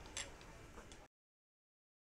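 A few faint, sharp clicks over quiet background noise, then the sound cuts to silence a little after a second in.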